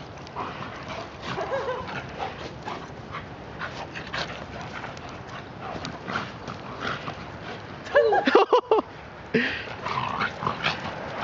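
A young German Shepherd and a Shiba Inu play-fighting: scattered short yips and whimpers, with a louder pitched burst of vocalising about eight seconds in.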